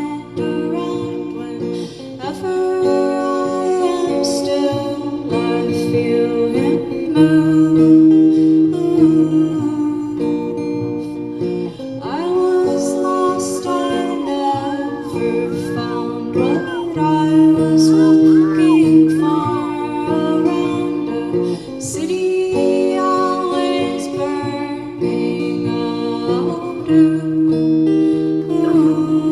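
Live song with guitar carrying an instrumental passage: held chords with notes bending in pitch about midway.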